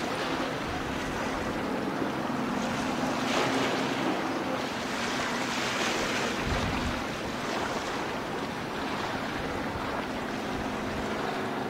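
Steady wind and sea wash, with a faint low hum underneath.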